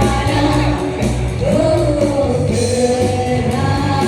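A singer holding long, gliding sung notes over a band accompaniment.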